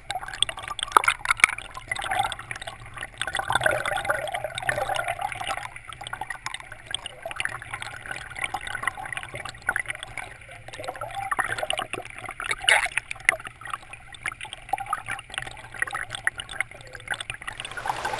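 River water gurgling and bubbling as heard by a camera held underwater in a shallow, fast-flowing stream, muffled, with many irregular small ticks and knocks.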